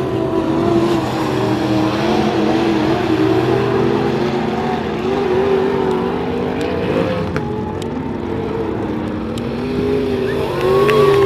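Dirt modified race cars' engines running hard around a dirt oval, their pitch rising and falling as they accelerate and lift through the turns. Several engines overlap, and the sound grows louder near the end as cars come close.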